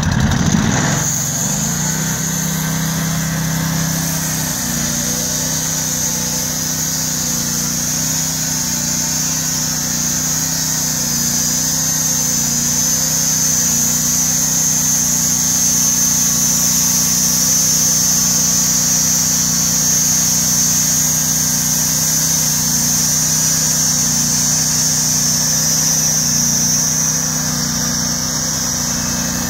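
Norwood portable bandsaw mill running at speed, its gasoline engine driving the band blade as the sawhead cuts along a log. The engine settles into a steady run about a second in.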